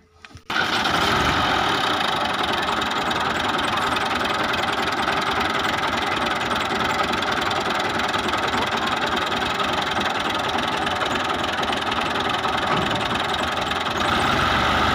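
New Holland Fiat 480 tractor's diesel engine running steadily. It cuts in abruptly about half a second in, and its note gets deeper and a little louder near the end.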